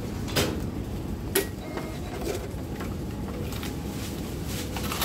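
Steady low background hum at a shop checkout counter, with two short sharp clicks, about half a second and a second and a half in, as goods are handled on the counter.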